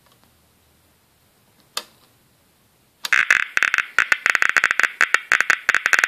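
Mini-Instruments type 540 scintillation meter being switched on: a single click from its rotary switch about two seconds in. About a second later its loudspeaker starts a rapid, irregular crackle of clicks, many a second, one per detected count, as the meter registers radiation that the owner suspects is just high local background.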